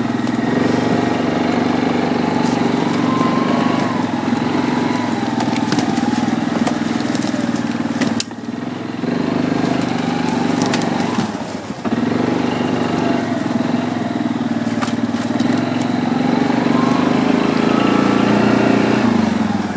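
Yamaha Grizzly 700 ATV's single-cylinder engine running under throttle while being ridden, its note rising and falling with the throttle. It briefly drops off twice, about eight and eleven and a half seconds in, and is loudest near the end.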